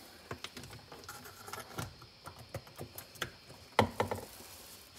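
A USB-C cable being handled and plugged in: scattered light taps and rustles, with one sharper click near the end.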